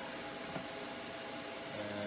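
Steady fan-like hiss of a running desktop PC, with faint steady hum tones. Near the end a man's voice holds a low hum.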